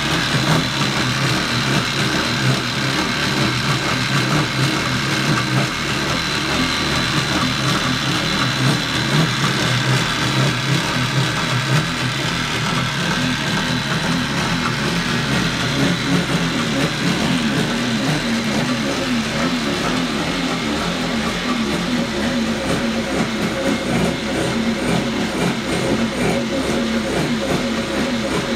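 1987 Kawasaki X2 jet ski's two-stroke twin engine running steadily out of the water, test-run after its exhaust manifold nuts were tightened to stop leaks.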